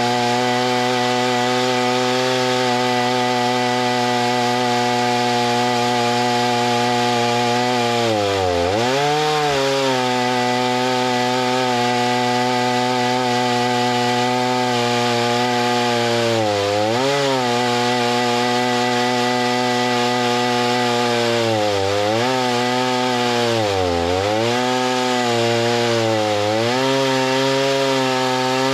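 Chainsaw engine running at high speed while cutting wood. Its pitch dips briefly and recovers about five times as the engine loads up in the cut.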